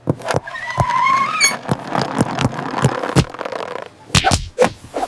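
A rapid clatter of knocks and thumps, with a short rising whistle about a second in and a louder pair of hits near the end: slapstick scramble sound effects of someone trying to grab a rolling toy ball.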